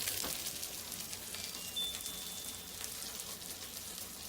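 Cheese frying in a pan, a steady crackling sizzle as it is pressed to crisp.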